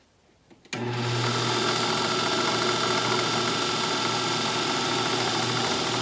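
Drill press switched on and running steadily, boring 3/8-inch holes through a laminated plywood block; the motor hum starts abruptly a little under a second in.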